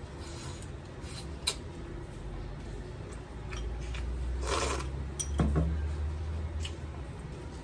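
A man eating rib soup from a porcelain bowl: small clicks of chewing and of a metal spoon, then about four and a half seconds in a slurp of soup drunk from the bowl, followed by a knock as the bowl is set back down on the wooden table.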